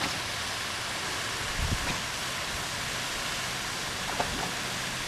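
Steady rushing hiss of small waterfalls spilling into a creek pool, with a couple of faint low thumps.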